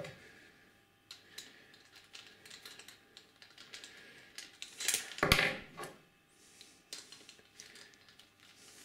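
Small metallic clicks and taps of a starter-motor through-bolt and a hand socket driver being handled as the bolt is started into the end cap, with a louder clatter of handling about five seconds in.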